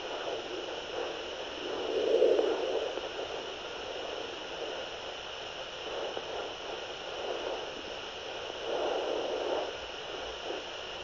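Fetal Doppler monitor hissing with static and irregular whooshing swells, the loudest about two seconds in and again near the end, while still searching for the unborn baby's heartbeat; no clear even beat comes through.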